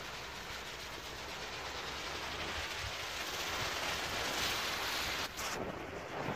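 Steady hiss of a small Category 1 ground firework burning and spraying sparks, with no bangs. The sound dips briefly a little over five seconds in and then goes on with less of its sharp top edge.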